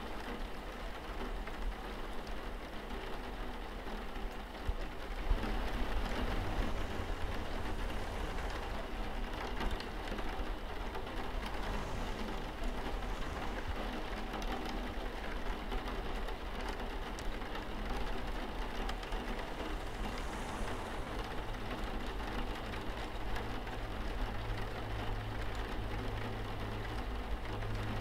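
Steady rain on a window pane, with a low sustained drone underneath that swells about five seconds in and again near the end.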